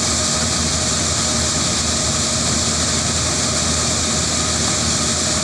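Corn harvesting machine running steadily with a constant engine hum.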